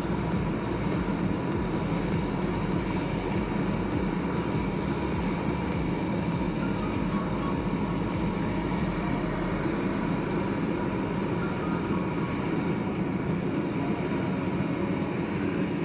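Propane burner of a metal-melting foundry furnace running steadily, heating a crucible of copper and aluminum to melt into aluminum bronze.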